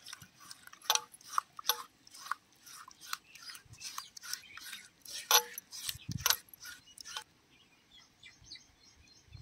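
A hand squishing and mixing wet spice paste in a clay pot: a quick run of short wet squelches and smacks that stops about seven seconds in.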